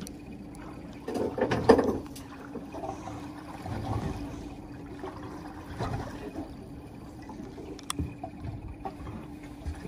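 Mercury outboard motor idling with a steady hum, with water sloshing against the boat's hull and a louder burst of noise about a second in.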